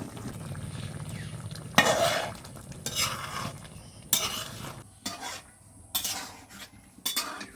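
A metal spoon stirring curry in a cooking pot, scraping the pot in short strokes about once a second, over the sound of the curry bubbling.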